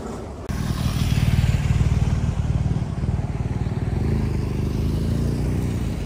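Motorcycle engine running close by: a steady, low-pitched, rapidly pulsing engine sound that comes in suddenly about half a second in, its pitch shifting slightly near the end.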